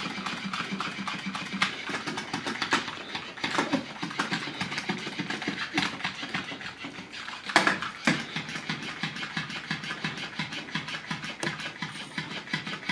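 Battery-powered floppy fish cat toy running, its motor buzzing and its tail flapping rapidly against a hardwood floor, with a few louder knocks as it is batted around.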